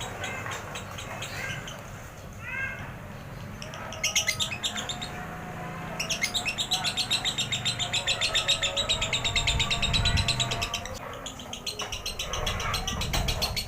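Lovebird singing its long chattering 'ngekek' song. A few short chirps come first. About four seconds in, a run of rapid, repeated high notes begins and carries on for about five seconds without a break, then breaks into shorter bursts of chatter.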